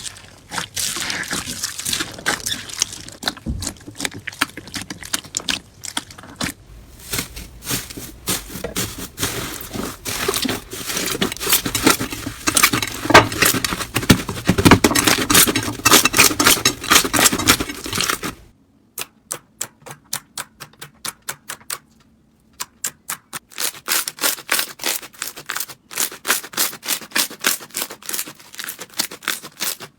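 Crunchy slime being squeezed and pressed, giving dense crackling and clicking. About 18 seconds in it changes abruptly to a run of sharper, separate clicks and pops with short gaps between them.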